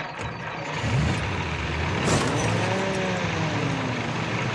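Cartoon sound effect of a truck engine running steadily, with a short sharp hiss about two seconds in, like air brakes.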